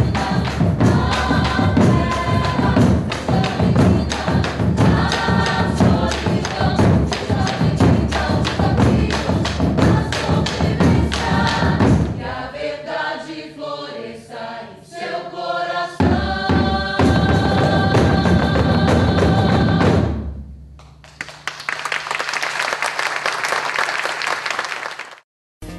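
Stage music: a choir of voices singing over steady drumming, in a style drawing on northern Minas Gerais and African traditions. About 12 s in the drums drop out, leaving the singing alone, then they come back about 4 s later. Near the end the music stops for a few seconds of steady, even noise.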